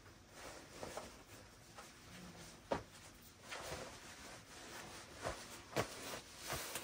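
Quiet rustling of clothes being handled during packing, with a few light knocks or clicks.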